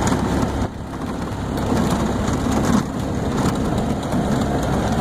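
Golf cart driving along a rough grass field track: a steady low rumble from the cart, with irregular knocks and rattles as it goes over the bumps.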